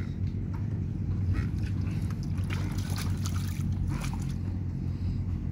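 A small boat engine running steadily at idle, a low even hum. A few splashes of water come between about two and four seconds in, as a hand dips into the river over the side of the boat.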